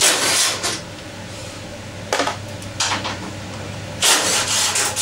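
Scraping and rubbing of a hand screwdriver working the screws of a generator's grill panel. It comes in short bursts: one at the start, two brief ones around two and three seconds in, and a longer one near the end. A steady low hum runs underneath.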